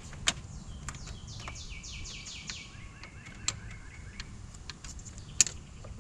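A songbird singing a quick run of about eight falling notes, with several sharp clicks of hand tools against metal, the loudest just after the start and near the end, as pliers work a hose clamp.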